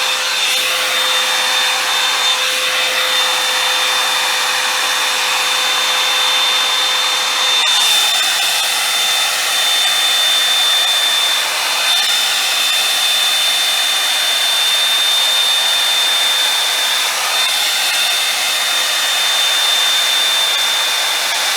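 Revlon One-Step hot air dryer brush running steadily while drying a section of hair: a continuous rushing blow with a steady high-pitched whine. A lower hum drops away about a third of the way in.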